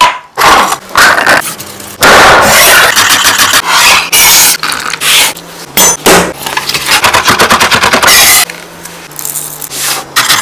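Kitchen prep: chickpeas shifting and scraping in a metal mesh sieve, then a chef's knife crushing garlic and chopping it rapidly on a wooden board.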